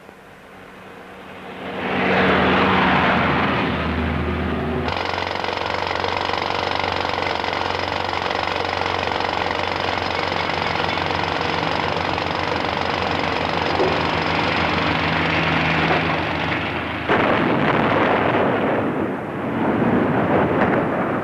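Pneumatic rock drills hammering in a fast, dense rattle, drilling blast holes in the rock. Near the end a sudden loud blast sets in, a rushing roar that swells twice and then dies away. A rushing noise also swells up in the first couple of seconds.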